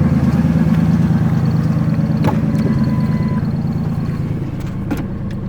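1999 Ford Windstar's 3.8 L V6 idling with a rough, pulsing exhaust note from a leak at the separated accordion-style flex pipe section. A couple of sharp clicks are heard partway through.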